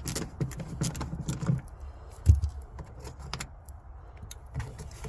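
Scattered clicks and light rattles of hand tools and screws working on the van's plastic interior trim, with one louder knock a little over two seconds in.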